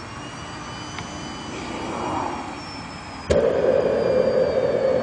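Model jet turbine being started: a high whine as the turbine spins up, then about three seconds in it lights with a click and a sudden loud, steady rushing noise.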